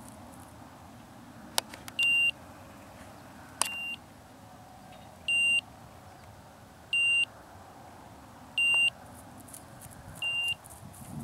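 Electronic beeper collar on a pointing dog giving short high beeps at an even pace, about one every second and a half, six times. A couple of sharp clicks fall between the first beeps.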